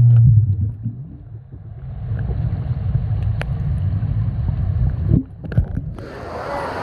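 Muffled low rumble of wave-pool water and wind buffeting the microphone, with the higher sounds dropping away for a few seconds in the middle.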